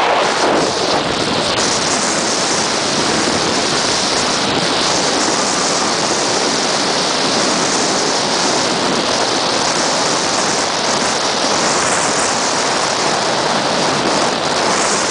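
Rough seas and strong wind in heavy weather at sea: a steady, loud rush of breaking water, with wind buffeting the microphone.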